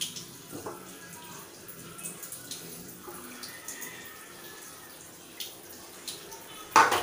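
Freshly squeezed coconut milk pouring in a thin stream through a small metal strainer into a ceramic mug, with light clinks. Near the end comes a loud metal clatter as the metal tray is set down on the tiled counter.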